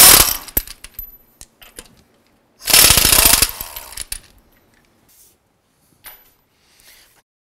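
Air impact wrench hammering lug nuts loose, in two bursts: a short one at the start and a longer one, about a second, a little under three seconds in. A few faint knocks follow.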